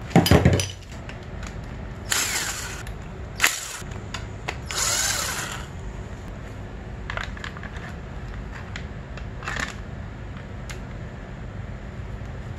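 Cordless Ryobi drill running in several short bursts, driving 5mm socket-head bolts that hold a plastic fork guard to a dirt bike's fork, the last burst about a second long; lighter clicks and taps from handling the bolts and guard follow.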